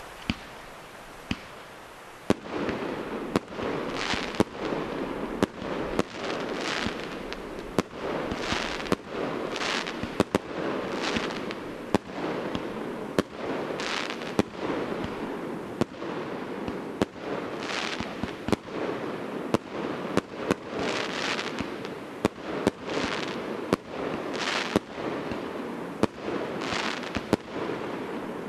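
A 36-shot, 30 mm assorted firework cake firing shot after shot, about one a second, from roughly two seconds in. Each shot is a sharp report, heard over a steady hiss and crackle from the tubes and bursting stars.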